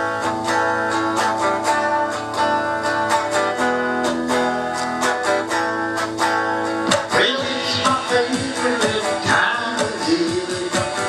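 Instrumental rock intro: strummed guitar over a steady electric-drum beat. About seven seconds in, the guitar notes begin to slide and bend.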